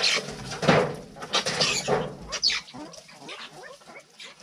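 A mongoose troop chattering: many short, overlapping squeaky calls and churrs, louder in the first half and fading toward the end.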